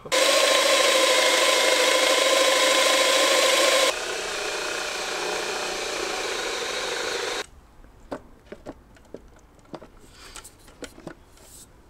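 Electric drill running steadily with a motor whine, boring holes into the plywood dolly plate for the tripod feet. It is loud for the first four seconds, runs on more quietly, then stops abruptly about seven and a half seconds in, followed by a few light clicks.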